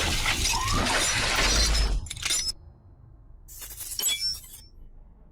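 Glass-shattering sound effect: a loud crash that breaks off about two seconds in, followed by a few fainter tinkling clinks.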